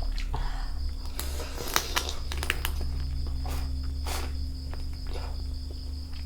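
Insects, likely crickets, chirring steadily on one high note, with scattered sharp clicks and rustles over it.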